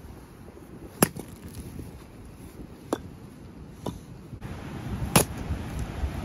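Axe blows splitting firewood on a chopping stump: four sharp cracks a second or two apart, the first and the last the loudest.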